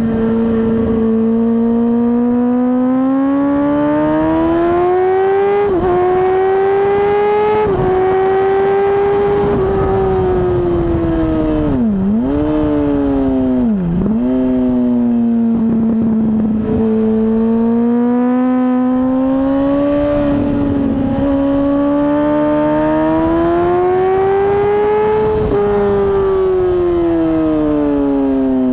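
Yamaha R1's inline-four engine at racing speed, heard from a tail-mounted camera: its pitch climbs through the revs with a couple of quick breaks, dips sharply twice midway, climbs again and falls away near the end. Rush of wind underneath.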